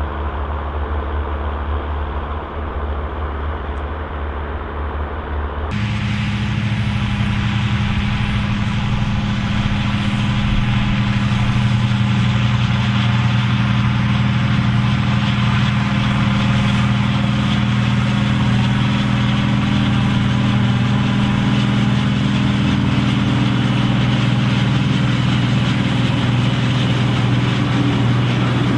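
Volvo BM turbo tractor's turbocharged diesel engine running steadily. About six seconds in, the sound changes abruptly to a louder, higher engine note, which then holds steady.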